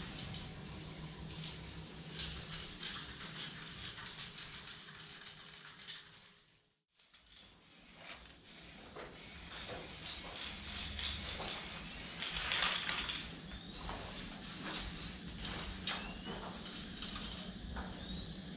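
Aerosol spray paint cans hissing in short bursts, one after another, as paint is sprayed onto a wall. The sound drops away briefly about seven seconds in, then the spraying resumes.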